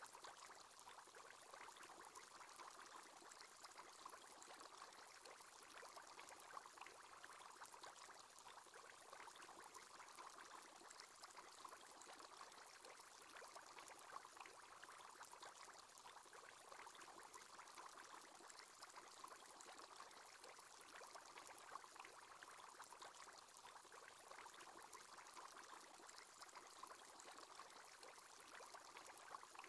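Faint, steady bubbling and trickling water: the bubble sound of an aquarium aerator's bubble column.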